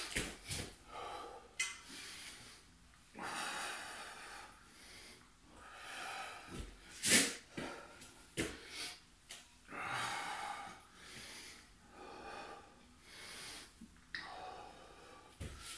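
A man's heavy, effortful breathing during a bodyweight core exercise: long noisy breaths about every three seconds, with a couple of short, sharp forceful exhales.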